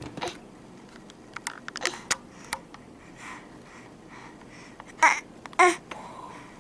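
A baby making fart noises: two short, loud, fluttering blasts about five seconds in, with faint babbling and small clicks before them.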